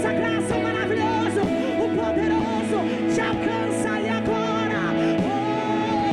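Live gospel worship music: a band holds steady chords while a voice sings freely over it without set words, a spontaneous song of praise.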